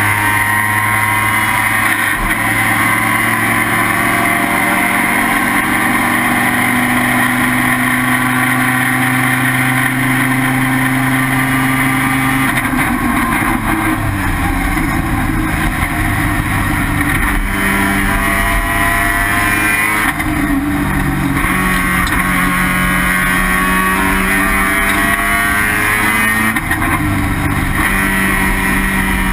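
Mazda RX-7's 12A rotary race engine running hard at a steady high pitch for about twelve seconds. Its note then falls, stays lower for a few seconds, and climbs again, with a short dip near the end.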